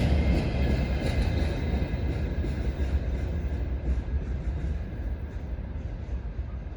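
Freight train rolling past: a steady low rumble of wheels on rail with faint clicks, slowly fading.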